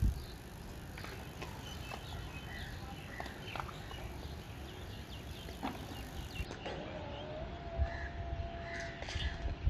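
Outdoor ambience: a low wind rumble on the microphone, scattered short chirps and clicks, and a steady held tone lasting about two and a half seconds in the second half.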